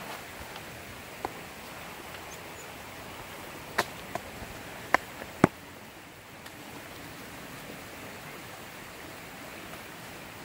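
A handful of sharp wooden knocks and snaps while a crossbeam is lashed to a tree trunk with a forest vine and the lashing is worked tight with a stick. One comes about a second in and a quick cluster comes around the middle, over a steady rushing background.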